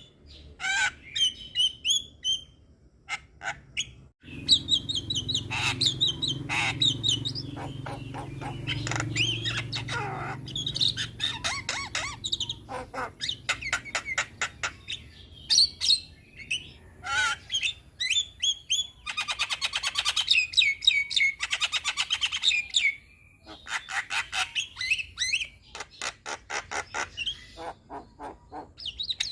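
Javan myna singing a long, varied song of whistles, squawks and chirps, with fast clicking rattles about two-thirds of the way through. A low steady hum runs under the first half.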